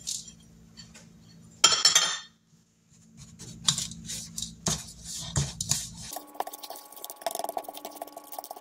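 A small glass bowl clinks against a plastic mixing bowl as spices and oats are tapped out, then a plastic spoon scrapes and clicks around the bowl, stirring dry crumble topping of flour, oats and brown sugar. A steady hum comes in about six seconds in, under the later stirring.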